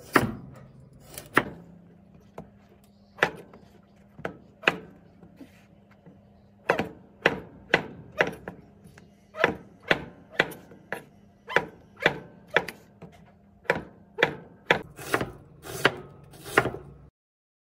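Kitchen knife slicing carrot and then onion on a wooden cutting board: a run of sharp knocks each time the blade meets the board, irregular at roughly one to two a second, stopping abruptly near the end.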